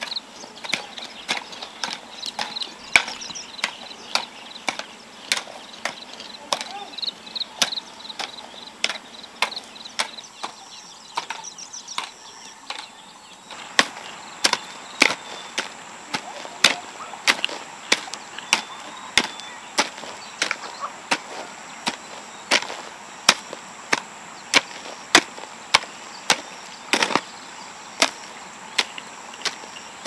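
Hand hoes chopping into soil and weeds, a steady run of sharp strikes about once or twice a second.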